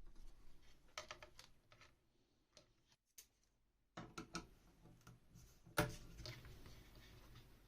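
Scattered light clicks and taps, with one sharper knock nearly six seconds in.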